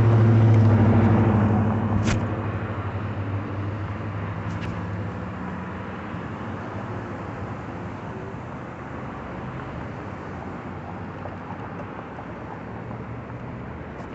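A motor vehicle's engine hum, loud at first and fading away over the first few seconds, leaving a steady rushing background noise. There is a sharp click about two seconds in.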